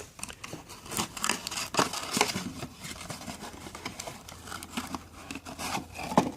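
Irregular clicks, rustling and crinkling, as of things being handled at close range.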